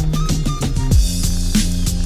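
Background music: an electronic track with a steady ticking beat over a held bass note, and a deep drum hit that drops in pitch about a second in.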